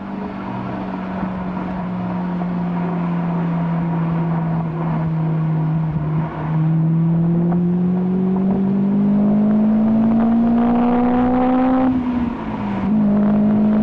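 Honda S2000 four-cylinder engine with a Mugen exhaust under way: the note holds steady, then climbs slowly as the car accelerates, drops briefly about twelve seconds in, and settles again, over road and wind noise.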